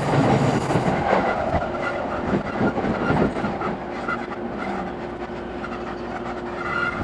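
Running noise of an E217 series electric commuter train heard from inside a passenger car: wheels clattering over the rails under a steady hum, easing off somewhat in the second half.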